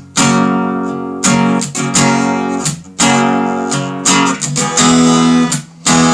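Acoustic guitar strumming chords, with brief breaks in the strumming about every three seconds.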